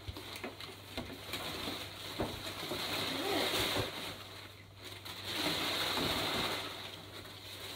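Gift bag and wrapping paper rustling and crinkling as it is handled, swelling twice, with scattered crackles and a couple of brief low wavering sounds.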